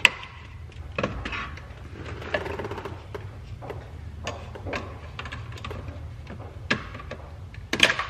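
Plastic clicks and rattles from a BMW E92 dashboard trim strip being handled while its clips and connectors are pulled loose behind it: scattered sharp clicks, the loudest right at the start and near the end, over a steady low hum.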